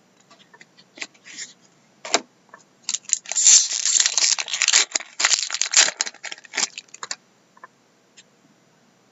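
A foil trading-card pack wrapper crinkling and tearing as it is opened. A few sharp clicks of cards being handled come first, and the crinkling dies away after about seven seconds.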